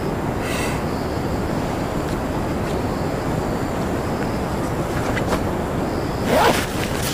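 Steady wind blowing across the microphone. About six seconds in comes a brief, louder rustle of a nylon tent bag being handled.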